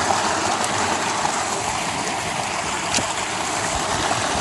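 Creek water rushing steadily over rocks, with one short click about three seconds in.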